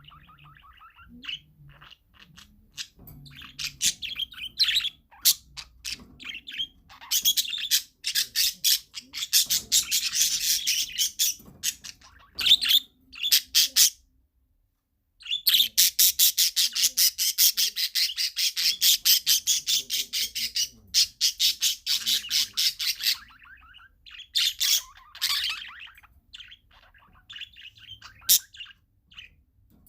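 Parakeets chirping and chattering, with long runs of rapidly repeated sharp chirps. The sound cuts out completely for about a second halfway through.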